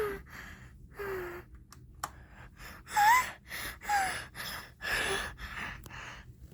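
A person's voice gasping and whimpering in fright: a string of short, breathy gasps about a second apart, some with a brief falling whimper.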